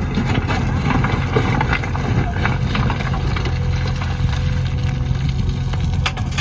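Diesel engine of a JCB backhoe loader running steadily, with knocks and clatter over it.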